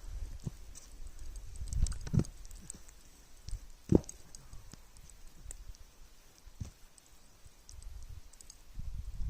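Snowskate deck and footsteps on snow: scattered knocks and thumps, the loudest about four seconds in, over a low rumble of wind on the microphone.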